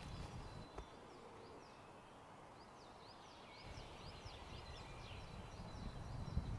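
Faint woodland ambience with small birds chirping: quick, high chirps, many dropping in pitch, repeated in the first second and again from about halfway on. A low rustle builds near the end.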